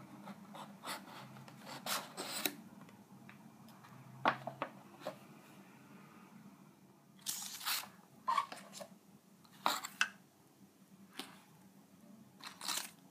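A cardboard box and its paper packaging being opened and unpacked by hand: paper sheets rustling and cardboard handled in scattered short bursts and light knocks.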